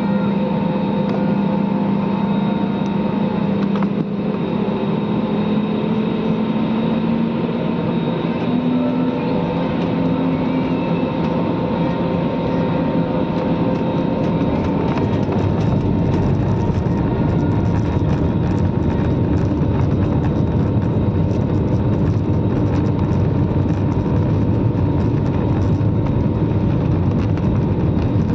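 Jet airliner cabin noise during takeoff: the engines run with a steady hum whose pitch drifts slightly upward, then about halfway through a heavier low rumble builds in and holds, as the engines reach takeoff power and the aircraft rolls down the runway.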